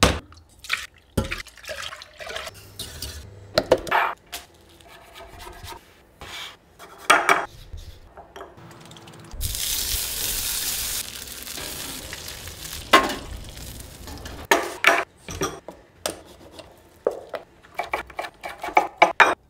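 A run of cooking sounds: knocks and clinks of utensils and stirring in a saucepan, then beef short ribs sizzling on a hot flat-top grill plate, loudest from about nine seconds in and dying down a few seconds later. Near the end a knife cuts through the meat against a wooden board, with a quick series of taps.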